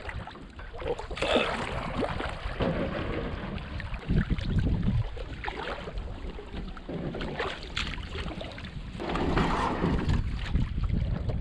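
Water lapping and splashing around a canoe, with wind buffeting the microphone in gusts.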